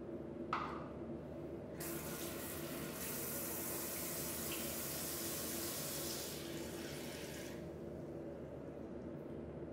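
Bathroom sink tap running into the basin: the water starts about two seconds in and stops about two seconds before the end. A short clack comes about half a second in.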